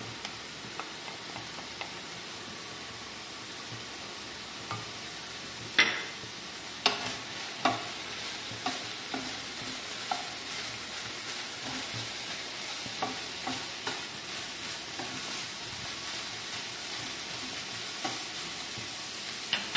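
Ground beef frying with a steady sizzle in a stone-coated frying pan, stirred and scraped with a wooden spatula, with scattered sharp knocks of the spatula on the pan, the loudest about six seconds in. The mince has cooked off its moisture and is now browning.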